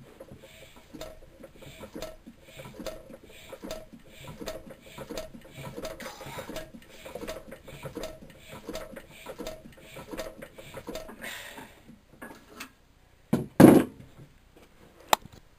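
Amanco Hired Man hit-and-miss stationary engine turned over slowly by hand against heavy compression, its atmospheric inlet valve clicking in a fast, uneven patter as it is sucked open and snaps shut. The clicking stops, and a couple of loud knocks follow about a second and a half before the end, then one sharp click.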